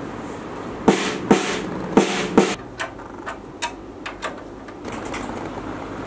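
Snare drum being tuned: four hard hits in two quick pairs, each with a short ring, then a run of lighter taps on the head, over a low steady room hum.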